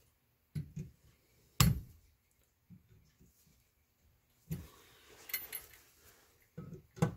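Steel bench vise being cranked tight to squeeze a cut chain link closed: metal clicks and knocks from the vise handle, with one sharp clank about one and a half seconds in and a brief metallic clink a little after the middle.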